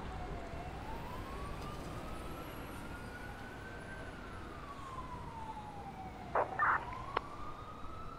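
A police siren wailing, its pitch slowly sliding up and down over a low rumble of background noise. A couple of short sharp noises and a click cut in about six and a half seconds in.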